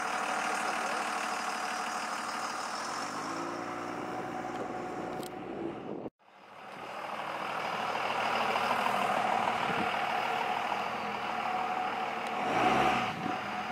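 Truck engine running with steady motor and road noise; the engine note rises about three seconds in, and the sound drops out for a moment around six seconds.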